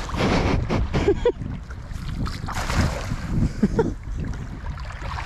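Shallow creek water sloshing and splashing in uneven surges around wading feet, with wind buffeting the microphone.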